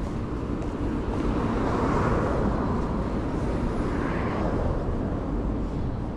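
City road traffic: a steady rumble of passing vehicles, with one passing car swelling to its loudest about two seconds in and another about four seconds in.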